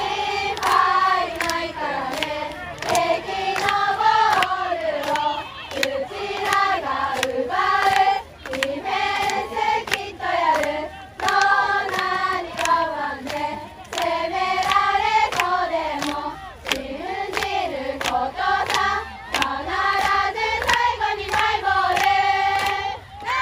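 A group of young women chanting a team cheer in unison, in a sing-song melody, with hand clapping mixed in.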